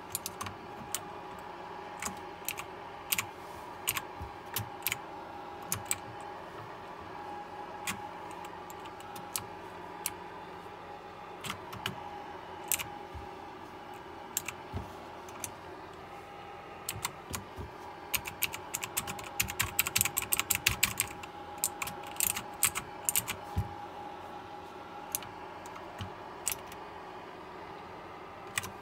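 KLIM Domination mechanical keyboard with blue switches clicking as keys are pressed: single keystrokes spaced out, then a quick flurry of rapid clicks a little past the middle. A faint steady whine runs underneath.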